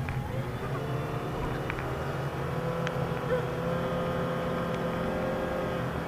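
Car engine and tyre noise heard from inside the cabin while driving slowly: a steady low rumble with an even drone and a few faint clicks.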